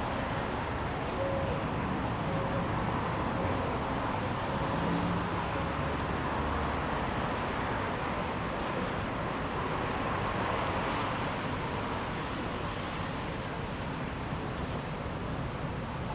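Steady city street traffic noise: the continuous rumble and hiss of passing road vehicles.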